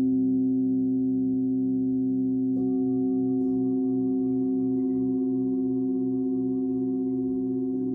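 Several crystal singing bowls sounding together in long, pure, overlapping tones, the lowest ones wavering in a slow pulse. New higher tones join about two and a half seconds in and again near the end.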